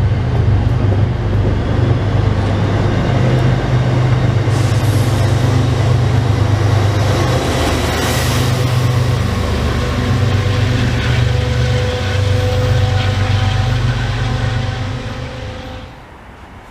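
MBTA commuter rail coaches, a mix of single-level and bilevel cars, rolling past close by: a loud, steady low rumble of wheels on rail with faint ringing tones above it. The noise falls away quickly about 15 seconds in as the last car clears.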